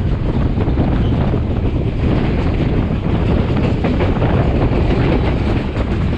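Passenger train running along the track, heard from an open door of a carriage: a steady rumble with irregular wheel clatter, and wind on the microphone.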